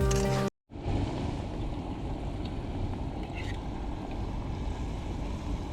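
Wind buffeting the microphone: a steady low rumbling noise. Background music cuts off about half a second in, just before it.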